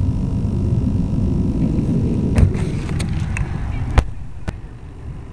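Strong wind rumbling on the small onboard camera microphone of a landed RC plane. About two and a half seconds in the rumble thins, and knocks and handling rustle follow as the plane is picked up by hand, the sharpest knock about four seconds in.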